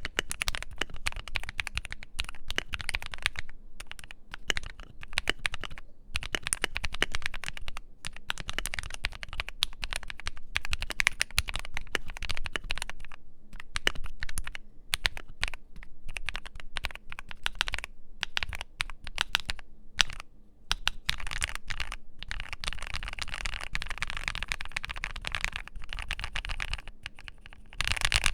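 Typing on a modded Keychron Q3 aluminium tenkeyless mechanical keyboard with lubed and filmed Akko Matcha Green switches: a steady run of keystroke clacks that grows faster and denser in the last few seconds.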